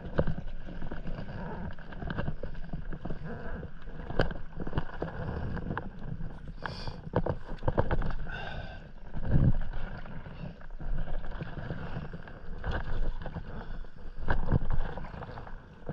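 Stand-up paddleboard paddle strokes: the blade dipping and pulling through calm seawater, a swell of splashing and dripping every couple of seconds.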